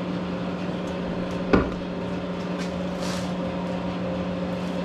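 Steady electrical hum of a Monarch 10ee lathe's DC variable-speed drive, with a single sharp knock about a second and a half in.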